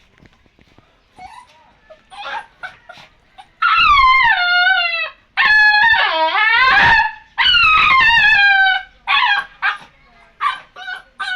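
Puppy yipping, then howling three long high-pitched howls that fall in pitch, followed by more short yips.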